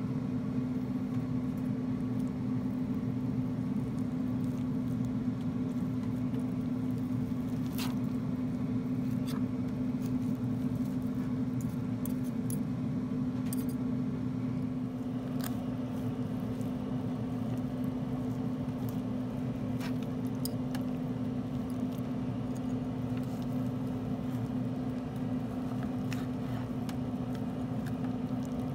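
Steady motor hum of a running pellet grill's fan, with soft squishing of smoked chuck roast being pulled apart by forks and occasional sharp clicks of fork tines against the plastic cutting board.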